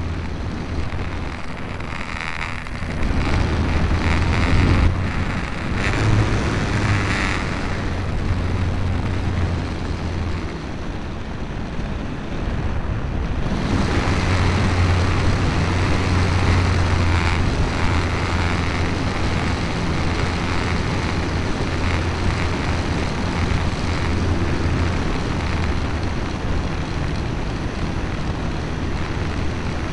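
Multiplex FunCub RC plane's electric motor and propeller running, heard from a camera on the airframe, mixed with steady wind rush over the microphone. The sound dips about eleven seconds in and comes back stronger about thirteen and a half seconds in.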